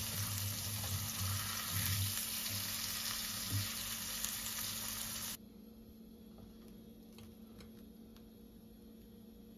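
Fillets frying in hot oil in a stainless-steel pan, sizzling steadily as a spatula moves the pieces, with a few low knocks. The sizzle cuts off suddenly about five seconds in, leaving quiet room tone with a few faint ticks.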